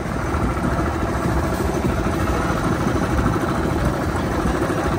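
Mini bike's small single-cylinder four-stroke engine running steadily at low revs, close to the microphone.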